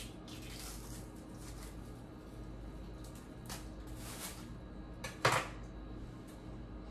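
Dry onion skin being peeled off with a paring knife: short papery crackles and rustles. One sharp, ringing clink of the knife about five seconds in, over a faint steady low hum.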